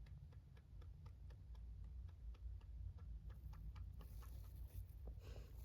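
Rabbit chewing hay: a quick, irregular run of faint crunching clicks, with a short rustling hiss about five seconds in.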